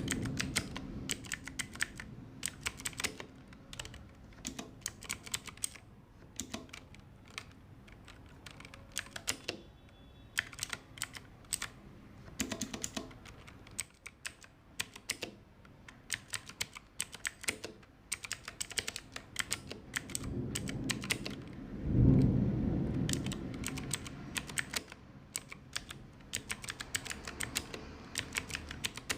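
Typing on an Ajazz AK33 mechanical keyboard with clicky blue switches: rapid runs of sharp key clicks with short sparser pauses. A dull low thump about three-quarters of the way through is the loudest sound.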